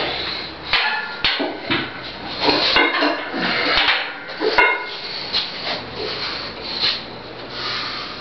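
Irregular metal clinks and knocks of gym equipment being handled, over a steady hiss.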